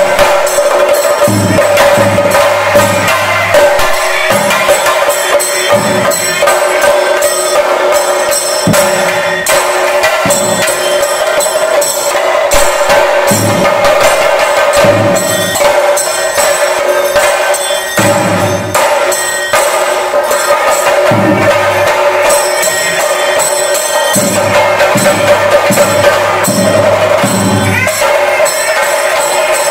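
Chenda drums of a Kerala temple ensemble beaten with sticks in a fast, dense rhythm, over a steady held tone.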